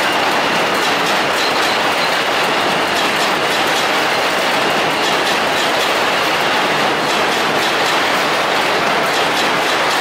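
New York City Subway train running over the Williamsburg Bridge's steel track structure: a steady, loud rush of wheels on rail with faint clicks of wheels passing over rail joints.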